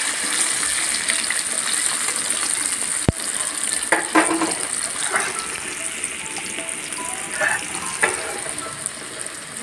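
Potato chunks sizzling as they deep-fry in hot oil in a kadai, a steady hiss that grows fainter near the end. A single sharp click sounds about three seconds in.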